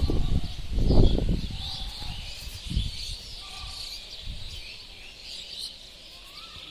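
Many birds chirping and twittering together in a continuous high chorus. A low rumble on the microphone about a second in, and a shorter one near three seconds, stand out from it.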